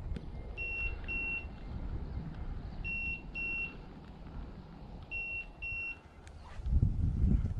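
Electronic beeper collar on a German shorthaired pointer sounding a high double beep about every two seconds, three pairs in all. This is the repeating pattern a beeper collar gives in point mode while the dog stands still. A low rumble runs underneath and grows louder near the end.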